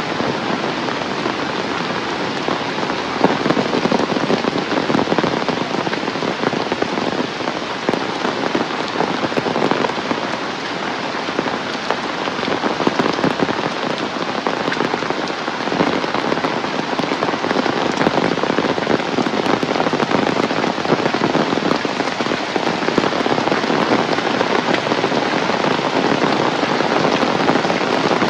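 Heavy rain falling steadily, a dense hiss with the close patter of countless drops striking surfaces.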